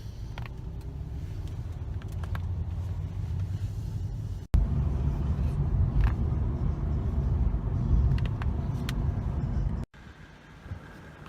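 Steady low rumble with a few faint, sharp clicks scattered through it. It jumps louder about halfway through and drops back abruptly near the end.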